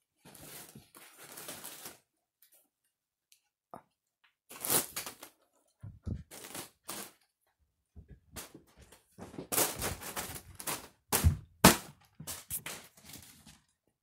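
Foil balloons being struck by the spinning blades of a ceiling fan: irregular crinkling slaps and rustles of the metallic film, in clusters, with two sharp, loud hits late on.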